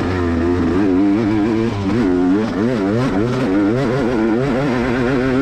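Four-stroke dirt bike engine under racing load, its revs rising and falling over and over as the throttle is worked along the trail.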